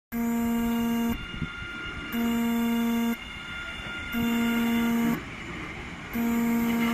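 Horn of a new MBTA Orange Line train sounding four even blasts of about a second each, two seconds apart, with the train's running noise between them.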